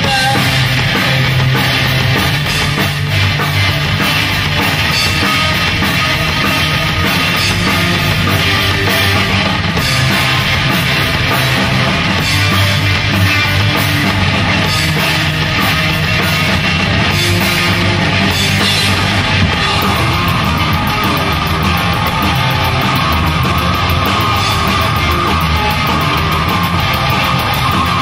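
Rock band playing loud and dense, with distorted electric guitar, bass guitar and drum kit. The guitar part changes about two-thirds of the way through.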